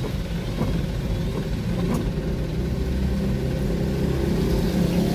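Mitsubishi Canter truck's diesel engine running steadily at low speed, heard from inside the cab as a low rumble that grows slightly louder, with a few faint clicks.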